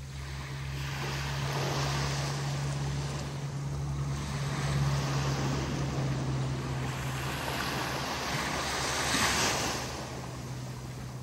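Small waves breaking and washing up on a sandy beach. The surf swells around two seconds in and again around nine seconds, over a steady low hum.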